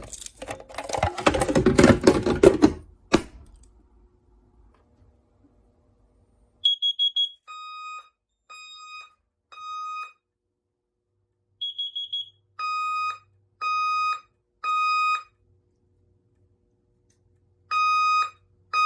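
Fire alarm sounder sounding the temporal-three evacuation pattern: three tones about half a second each, a pause, then three more, with a third set starting near the end. Each set is preceded by a short, rapidly pulsing high chirp. The first few seconds hold a loud clatter before the alarm.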